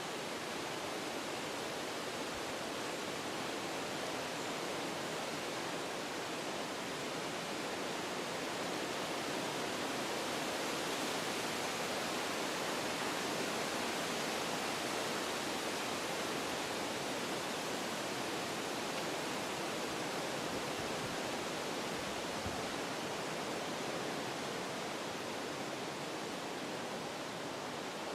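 Wind blowing through forest trees: a steady rushing of leaves and branches that swells gently toward the middle and eases off again.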